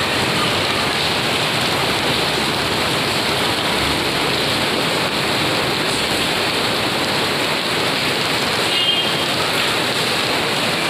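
Heavy rain falling steadily on a street, an even, unbroken hiss of drops hitting the wet road and foliage.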